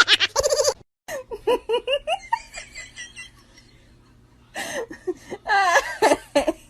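People laughing: a loud burst of laughter that cuts off abruptly just under a second in, then quieter giggling, a short lull, and more laughter near the end.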